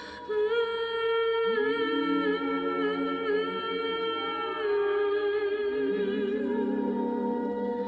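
Soprano voice singing sustained notes with vibrato, layered and harmonized upon itself, with new held notes entering one over another.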